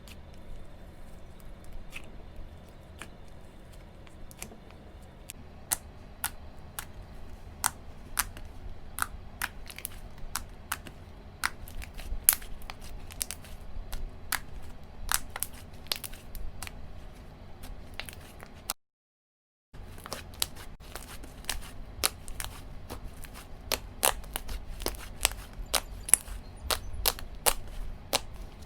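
Slime being squished and pressed by hand, giving irregular sharp clicks and crackling pops that come much thicker after about five seconds. The sound drops out completely for about a second roughly two-thirds of the way through.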